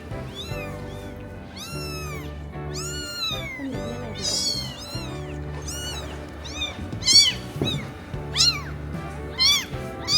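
Kittens meowing over and over in short, high-pitched cries, about one every half second to a second, with the loudest cries in the second half.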